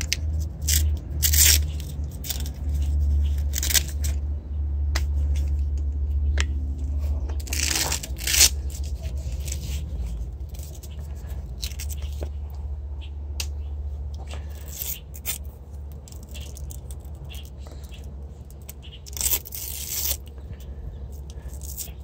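Hands working on an e-bike's wiring: cables and plastic plug connectors rustle and scrape, and a hook-and-loop strap on the frame is ripped open in several short tearing noises, the longest about eight seconds in. A steady low rumble runs underneath.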